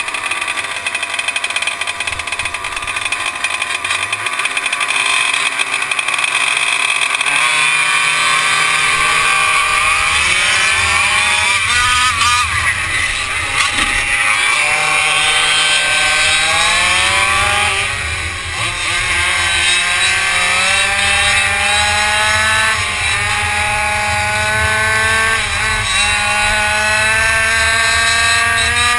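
Racing quad's engine heard from on board, running fairly steadily at first, then from about eight seconds in revving up again and again, its pitch climbing repeatedly as it accelerates and shifts up.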